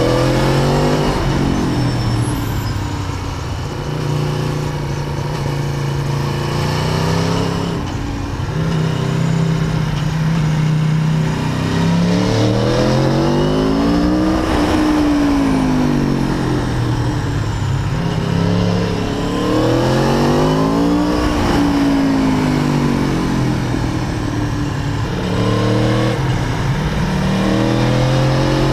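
Aprilia Tuono APRC Factory's V4 engine under way, its pitch climbing and falling repeatedly as the bike accelerates and rolls off, with a long drop in pitch about halfway through and another climb near the end.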